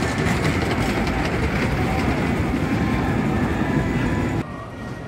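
Wodan Timburcoaster, a Great Coasters International wooden roller coaster: a train rumbling and clattering along its wooden track close by. The loud rumble cuts off suddenly near the end, leaving a fainter rumble.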